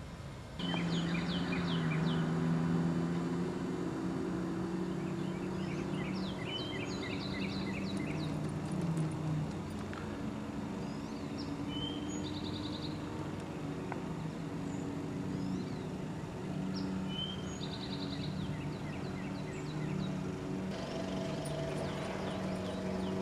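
Songbirds chirping and trilling again and again over a steady low motor drone, the sound coming in abruptly about half a second in.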